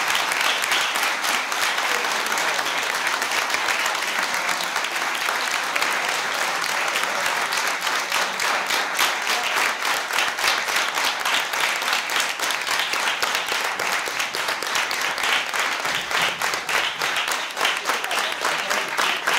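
A small audience applauding steadily, many hands clapping together; individual claps stand out more in the second half.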